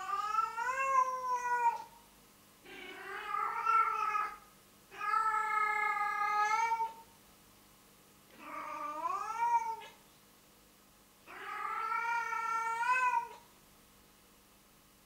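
Female domestic cat in heat giving her mating call: five long, drawn-out yowls about a second apart, each bending up and down in pitch.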